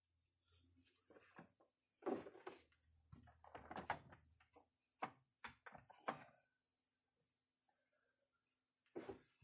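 Scattered knocks, bumps and scrapes from a heavy steel wood stove being shifted through a doorway, loudest about two and four seconds in. Behind them, an insect chirps steadily in high pulses about three times a second.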